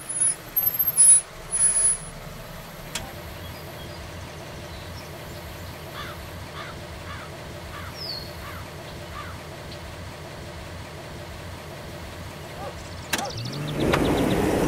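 Sound effects for a vehicle crash scene: several loud, very high-pitched beeps in the first two seconds, then a steady low rumble with a few faint chirps. Near the end there is a sharp click, and another vehicle's engine grows louder as it pulls up.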